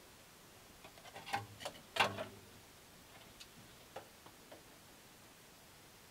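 A hand tool clicking and knocking against the metal parts of a small metal lathe. There is a quick cluster of sharp knocks, the loudest about two seconds in, then a few lighter ticks.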